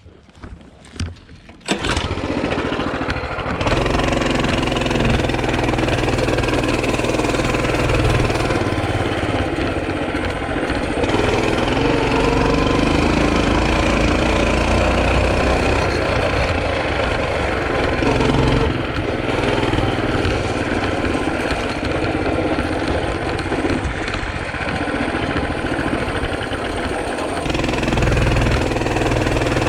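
A small petrol engine starts about two seconds in and then runs steadily, its speed rising and falling a little now and then.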